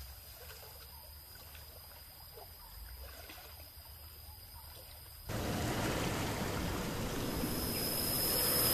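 Low background with faint scattered ticks, then about five seconds in a sudden, steady rush of flowing stream water that grows gradually louder, with a high hiss joining near the end.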